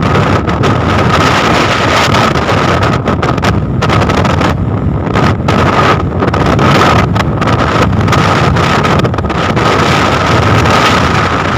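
Storm wind buffeting the microphone aboard a fishing vessel, over the boat's engine running, with a steady high whine underneath.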